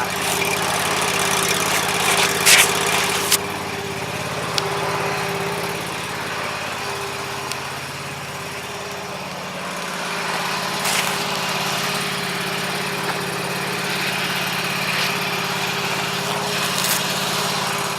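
John Deere tractor engine idling steadily while it warms up after a cold start. A few sharp clicks sound over it, two of them close together a few seconds in.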